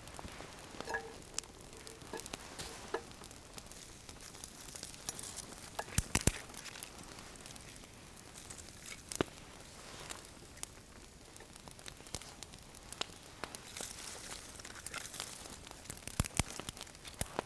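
Small campfire crackling, with scattered sharp pops and snaps that are loudest about six seconds in and again near the end.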